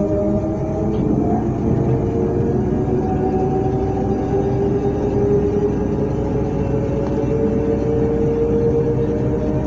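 Electric multiple unit Z 20892, a double-deck train standing still, humming from its electrical equipment: several whining tones that slowly drift in pitch over a steady low rumble.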